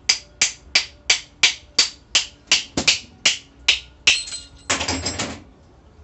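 Small hammer tapping a metal 4L60E sprag clutch assembly held in the hand: about eleven sharp knocks, roughly three a second, then two longer, rougher sounds near the end as the assembly comes apart. The sprag is seized, the cause of the noise and shudder when the transmission shifts into second.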